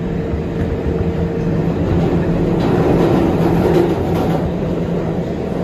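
R188 subway train running at speed through a tunnel, heard from inside the car: a steady rumble of wheels on rail with a low traction-motor hum. A higher hum drops out about a second and a half in.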